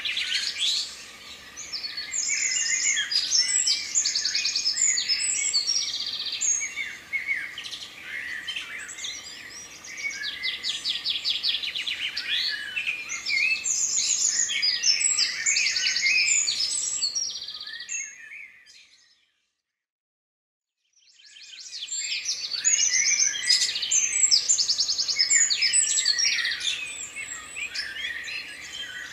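Songbirds singing together, a dense mix of overlapping trills and chirps. The song fades out about two-thirds of the way through, stops for a couple of seconds, and fades back in.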